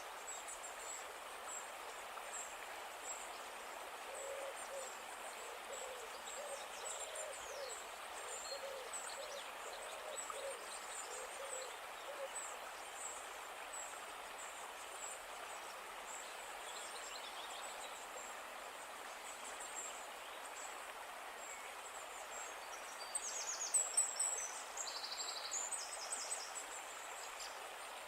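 A river flowing steadily, with birds calling over it: a series of low repeated calls in the first half, small high chirps throughout, and a louder burst of high birdsong near the end.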